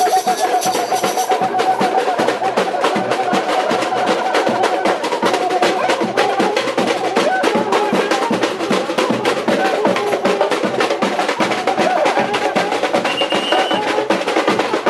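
Samba bateria playing a fast, steady rhythm on drums and percussion, with a cuíca's wavering squeal riding over it. A high whistle-like tone cuts off about a second in.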